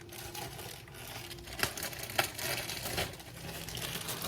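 Plastic bag of marshmallows crinkling as the marshmallows are shaken out, with a few light taps.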